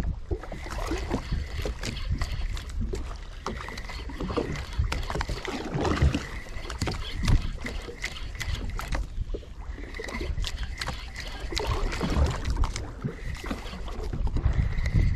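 Water lapping and slapping against the hull of a small drifting boat at sea: irregular splashes and knocks over a low, unsteady rumble.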